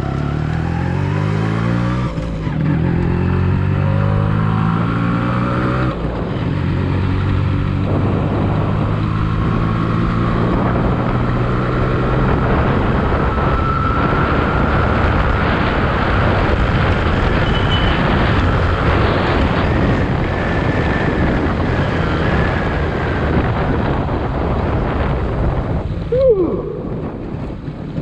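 Yamaha RX135's two-stroke single-cylinder engine pulling away and accelerating through the gears, its pitch climbing twice in the first few seconds, then running steadily at speed through the stock catalytic silencer; it eases off near the end.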